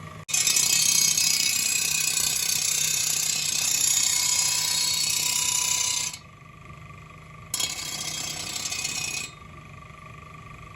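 A power tool running with a loud, steady high hiss for about six seconds. It stops, then runs again more quietly for about two seconds.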